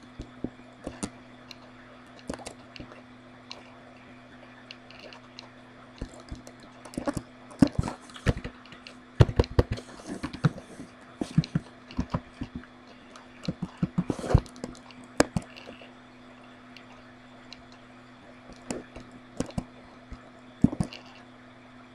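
Computer mouse clicks and bursts of keyboard typing, irregular taps bunched into clusters, over a steady low hum.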